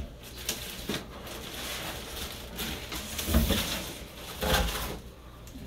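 Plastic wrapping rustling and a cardboard shipping box being handled as a plastic-wrapped part is lifted out of it, with two dull knocks, about three and a half and four and a half seconds in.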